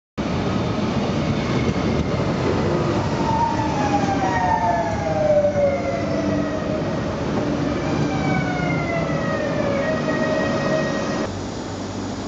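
Renfe Civia electric commuter train running in along the platform: rumbling wheel and rail noise with repeated falling whines from its electric traction motors as it slows. About eleven seconds in the sound drops to a quieter steady hum.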